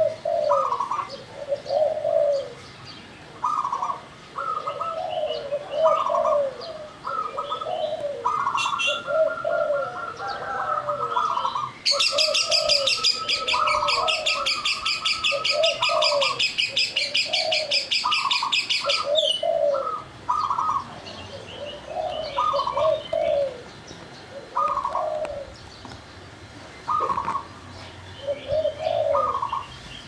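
Caged doves cooing, a zebra dove (perkutut) among them: short bubbling coo phrases repeat again and again, with several birds calling in turn. Partway through, a loud, fast, high-pitched trill runs for about seven seconds over the cooing.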